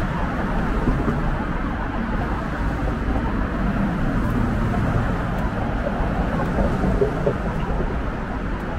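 Steady low rumble of city street traffic, an even wash of passing-car noise with no single event standing out.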